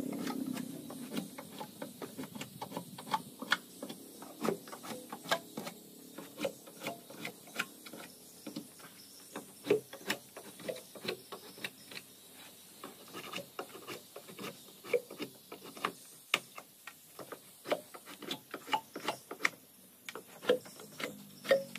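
Irregular light clicks and taps of hand work on the wooden planks at the bow of a boat hull, a few per second and uneven in strength.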